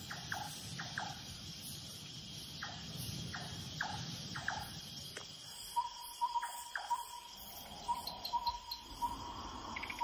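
Tropical forest night ambience: a steady high drone of calling insects, with repeated short calls falling in pitch through the first half. From about six seconds in comes a quick series of short high pips.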